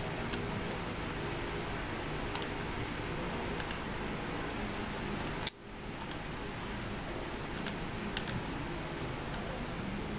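Scattered computer mouse clicks, some in quick pairs, over a steady hiss and low hum. One louder click comes about halfway through.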